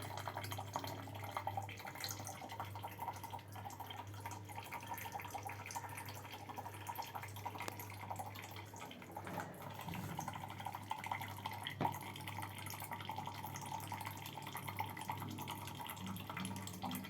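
Water dripping and trickling, a dense patter of small ticks over a steady low hum, with one sharper click about twelve seconds in.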